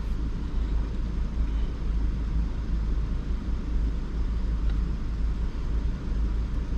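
A 2019 Ford Edge's engine idling steadily after a fresh battery has been fitted, heard as a low rumble from inside the cabin.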